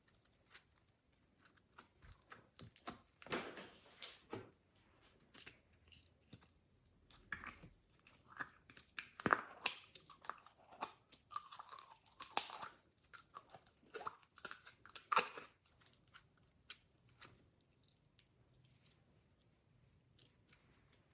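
Hands squishing and stretching glossy slime, giving irregular sticky clicks and crackles of popping air pockets. They are busiest in the middle and thin out near the end.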